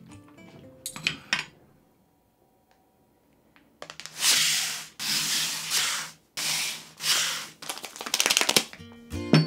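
Stick packets of Job's tears tea rustling as they slide across a tabletop, in several quick sweeps, ending in a fast rattling crinkle.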